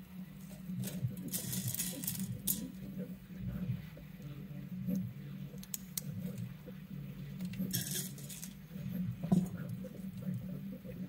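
Small plastic parts clicking and rattling as keycaps are fitted onto the links of a 3D-printed plastic chain necklace, with two brief rustling swishes as the chain is moved, over a steady low hum.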